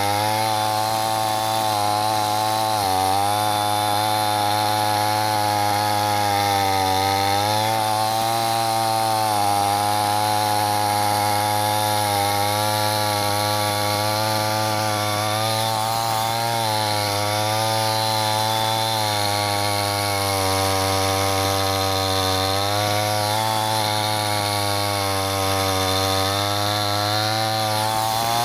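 Chainsaw running continuously through wood, its motor pitch sagging briefly and recovering every few seconds as the chain loads up in the cut.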